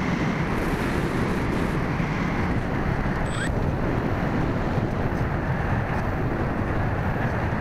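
Steady rushing noise of air buffeting the microphone of a small camera mounted on a radio-controlled model plane.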